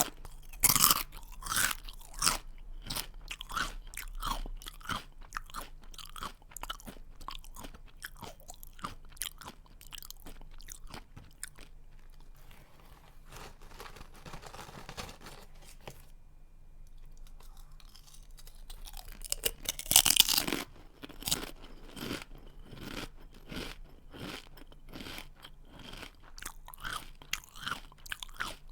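Close-miked chewing of a crunchy snack: a dense run of small crunches and crackles. There are louder crunching bites near the start and again about twenty seconds in, and softer chewing in between.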